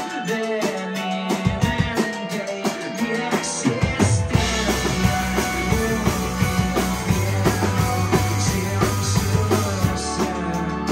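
A live rock band playing an instrumental passage, with the drum kit to the fore over bass guitar, mandolin, electric guitar and keyboard. A deep bass line comes in strongly about four seconds in.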